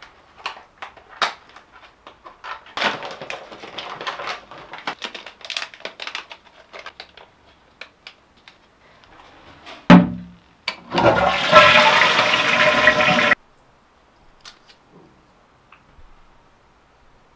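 Crinkling and rustling as a pregnancy test's cardboard box and foil wrapper are opened and torn. About ten seconds in comes a sharp knock, then a toilet flushes for about two seconds and cuts off abruptly.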